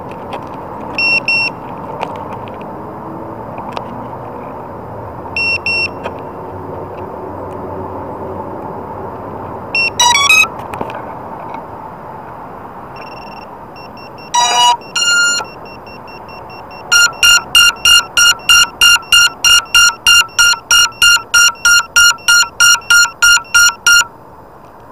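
Electronic beeps and chimes over a steady hiss: a few short beeps, a rising chirp about ten seconds in, a short run of tones, then a fast run of beeps, about four a second, for some seven seconds before stopping.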